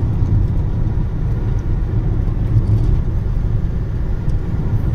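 A car driving along at steady speed, heard from inside the cabin: a constant low rumble of engine and tyres on the road.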